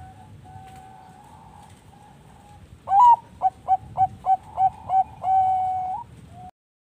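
Perkutut bangkok (zebra dove) singing its cooing song. About three seconds in comes a loud, sharp opening note, then a quick run of about eight short coos and one long held final note. Other doves coo faintly behind it.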